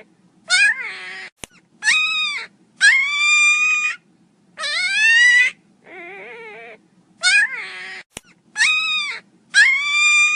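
Miniature pinscher puppy crying loudly: about seven high-pitched yelping cries, each under a second and rising then falling in pitch, with one quieter, lower, wavering whimper between them near the middle.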